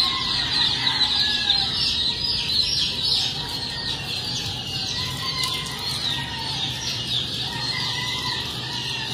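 A brood of young chickens peeping all together in a dense, continuous chorus of high, downward-slurred cheeps.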